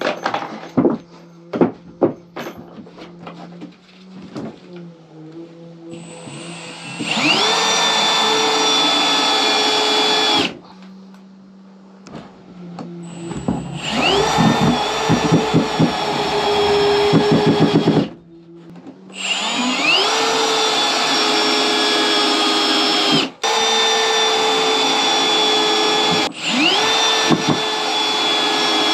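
Cordless drill driving screws into wooden floorboards: five runs of a few seconds each, each rising quickly to a steady whine and cutting off, with a rapid rattle during the second. Light clicks and knocks of handling screws and boards come before the first run.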